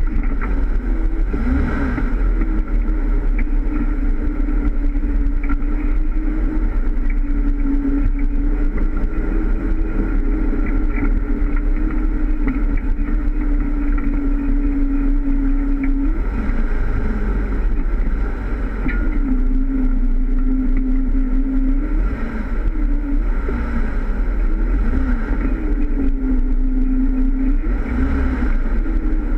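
Jeep Wrangler driving an off-road trail, its engine running steadily under a heavy low rumble, heard from a camera on the front bumper. The engine note drops about halfway through and then rises and falls several times with the throttle.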